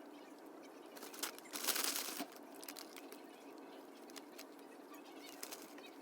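Small crunching and nibbling clicks of food being eaten, with a louder rustling, crunching burst from about a second and a half to just past two seconds in.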